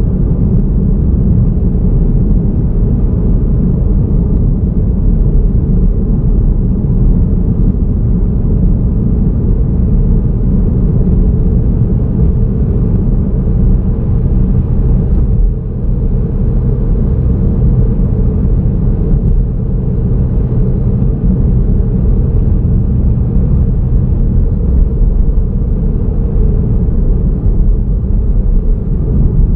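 Car driving steadily along a road: a continuous low rumble of tyres and engine, with a brief dip in level about halfway through.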